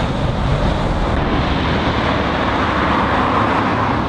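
Heavy road traffic: a curtainside articulated lorry's diesel engine and tyres as it works around a roundabout. About three seconds in, tyre noise swells as a MAN rigid lorry approaches.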